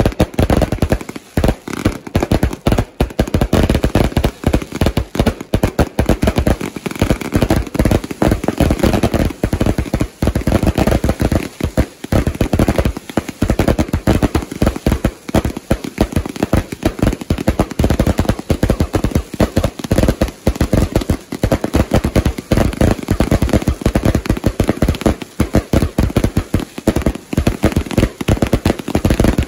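Firework cakes firing a dense, unbroken barrage of rapid bangs and crackles.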